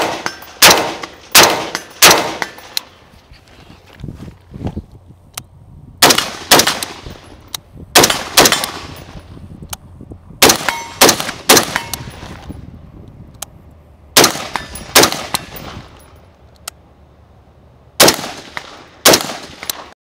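Semi-automatic rifle fire from an AR-15-style rifle (Bravo Company RECCE): strings of three or four shots about two-thirds of a second apart, repeated about five times, each shot with a short echo. Fainter sharp rings between the shots are steel targets being hit downrange.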